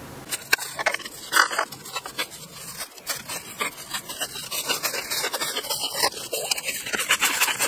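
Black cloth hockey tape being peeled off the roll and wrapped around a hockey stick blade: a crackly, rasping peel in many short, irregular rips.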